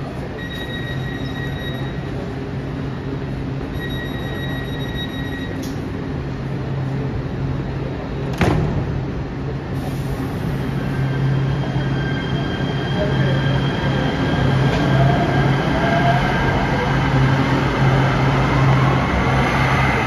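Light rail train in an underground station: a steady electric hum with high whine and squeal growing louder through the second half as the train moves, with gliding pitch. Early on two long electronic beeps sound one after the other, and a single sharp clunk comes about eight seconds in.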